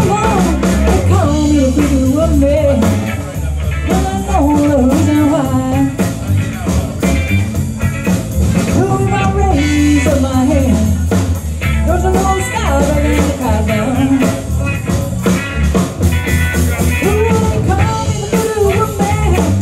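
A live blues band playing: electric guitar, bass guitar and drum kit together, with a steady beat and bending guitar or vocal lines over the bass.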